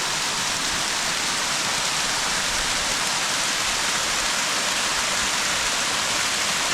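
Waterfall's falling water making a steady, unbroken rush.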